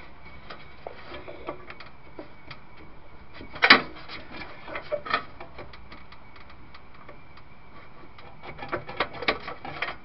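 Irregular clicks and taps of a hard drive, cables and connectors being handled and pushed against a steel PC case, with one loud knock about four seconds in and a quick run of clicks near the end.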